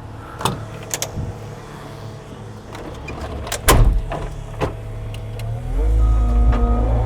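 Engine of a work machine idling with a few sharp knocks and clanks, the loudest about four seconds in, then revving up near the end.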